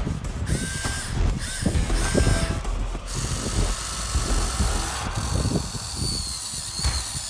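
Whine of a Huina 1580 RC excavator's small electric motors as it works, steadier and higher in the second half. A few short harsh calls sound over it in the first three seconds.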